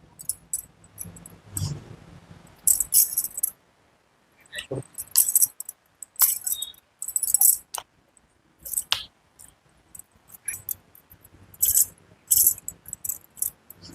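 Handling sounds during a chiropractic adjustment: repeated short bursts of high rustling and jingling, broken by a few sharp clicks or knocks.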